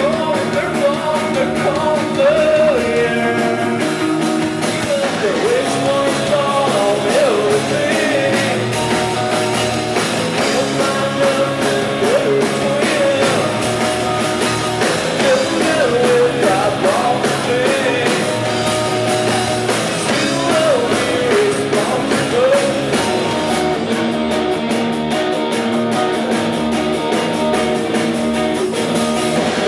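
Rock band playing live: two electric guitars, bass guitar and drums, with a wavering lead line over the top.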